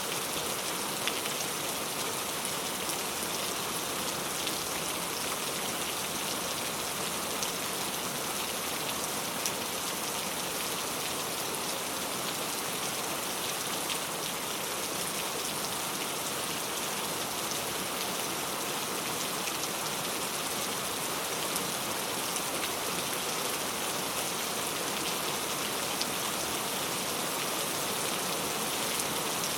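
Heavy rain falling steadily: a dense, even hiss of rain on a surface, with a few sharper drop hits now and then.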